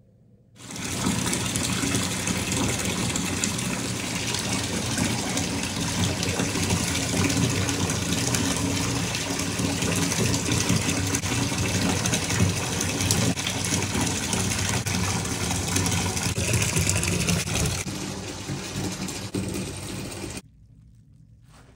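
Bathtub faucet running hard into a tub, water pouring and splashing as the tub fills for a bubble bath. It starts about a second in and cuts off suddenly shortly before the end.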